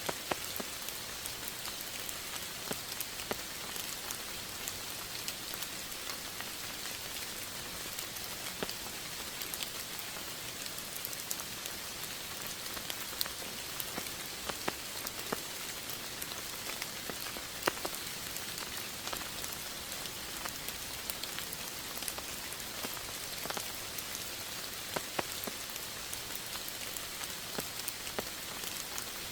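Steady rain falling, an even hiss with many separate drops tapping sharply on a surface throughout.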